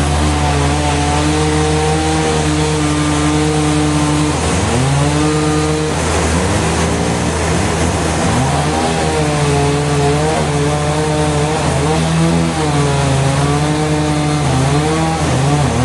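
Sawmill saw running loud and steady under a constant low hum, its pitch sagging and recovering several times as the blade takes load in the cut.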